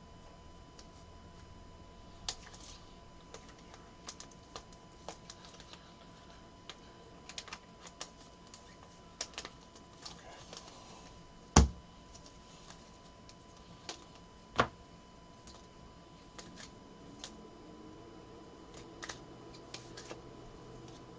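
Trading cards and their plastic holders being handled on a table: scattered light clicks and taps, with two louder knocks a little past halfway, about three seconds apart.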